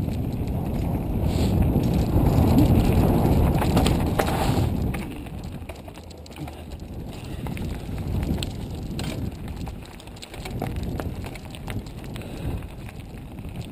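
Mountain bike ridden over rough ground: a loud rumble of tyres and wind for about the first five seconds, then quieter, with scattered clicks and rattles from the bike.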